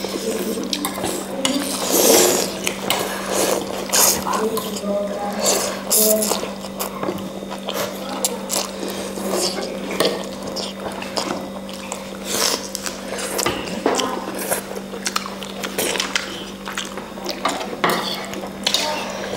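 Close-up eating of pork thukpa noodle soup: wet slurping and chewing, with frequent short clicks of utensils against the bowl, over a steady low hum.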